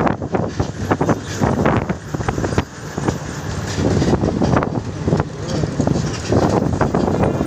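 Road and engine rumble of a moving vehicle, heard from an open window, with gusty wind noise on the microphone.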